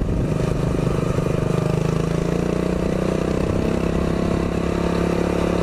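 Predator 212cc single-cylinder four-stroke engine on a minibike, running loud at a steady speed with its pitch holding level, held back by its governor.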